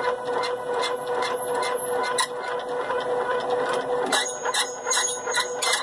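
Z-axis stepper motors of a homemade 3D printer running with a steady whine, along with repeated sharp squeaks and clicks that come thicker after about four seconds: the Z axis is dry and squeaks for want of grease.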